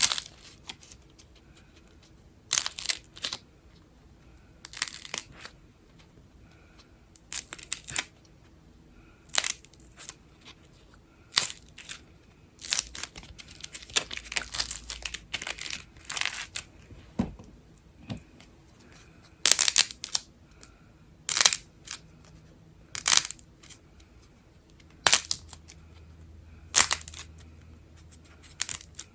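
Slime being squeezed and pulled apart by hand, giving short crackling, tearing bursts every second or two, bunched closer together around the middle.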